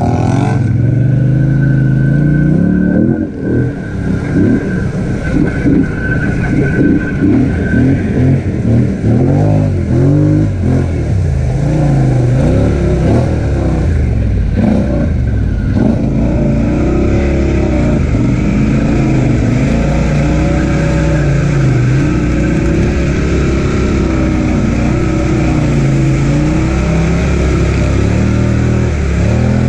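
Polaris Sportsman 1000XP ATV's twin-cylinder engine revving up and down again and again, working through deep mud and water. A thin, steady high whine sits over the engine for the first several seconds.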